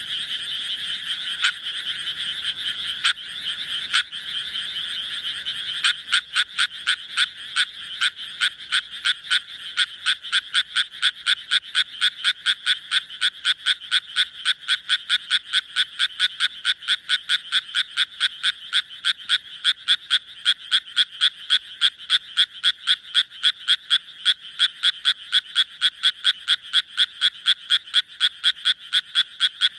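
Japanese tree frog calling. For about the first six seconds the calls run together densely without a break, then they settle into a steady series of short, evenly spaced croaks, about three a second.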